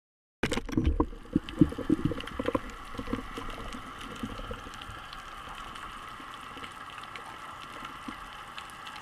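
Underwater sound heard through a camera housing: a burst of knocks and thumps starts about half a second in and dies away over the next two seconds. After that comes a steady underwater hiss with faint scattered clicks.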